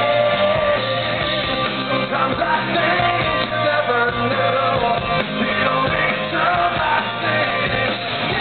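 Live rock band playing loud amplified music, with a male lead singer's voice over guitars and drums.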